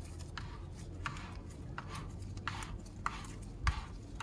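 Plastic coolant expansion tank cap on a BMW N52 engine being twisted open by a gloved hand, making a run of short scraping, clicking rasps about every half second as it turns. A heavier thump comes near the end.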